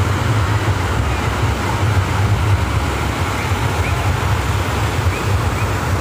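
Rushing water of a rocky river cascade, a steady loud roar of water pouring over rocks with a heavy low rumble underneath.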